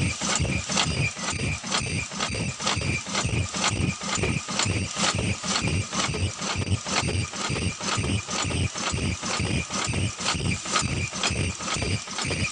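Automatic 3-ply flat ear-loop mask making machine running, its mechanisms knocking in an even, rapid rhythm of several strokes a second.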